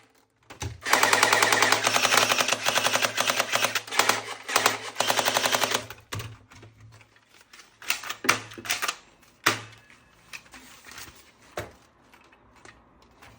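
Toy gun firing in full-auto bursts: a fast rattle of clicks, one long burst and then two short ones. After the bursts come a few separate clicks and knocks.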